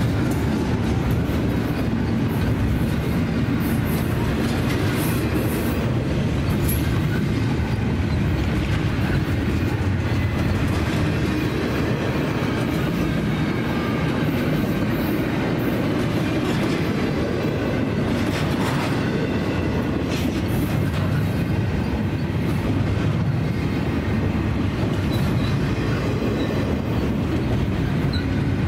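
Double-stack intermodal container well cars rolling past close by: a steady rumble of steel wheels on rail, with scattered clicks and clanks.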